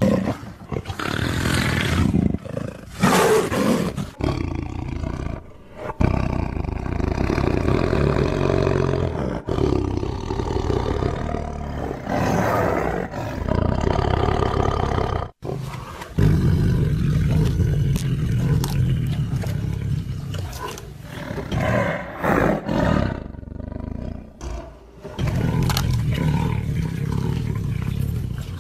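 Tigers roaring over and over, one loud roar after another, joined by abrupt cuts, with a brief break about halfway through.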